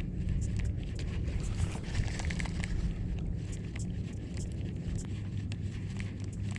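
Steady low rumble of wind on the microphone on open water, with scattered faint clicks and ticks throughout.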